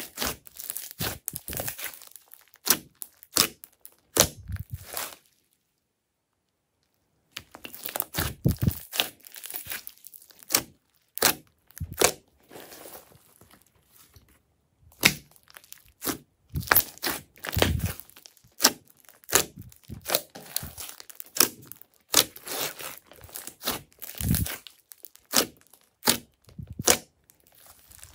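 Hands squeezing, folding and stretching glossy slime with small beads mixed in: rapid sharp clicks, pops and crackles as the slime is worked. The sounds stop for about two seconds around five seconds in, then carry on.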